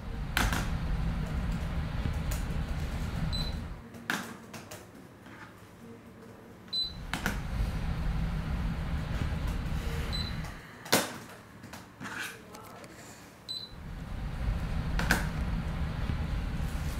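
Loud crunching bites into a crunchy snack every few seconds, with chewing between them. A short high beep repeats about every three and a half seconds.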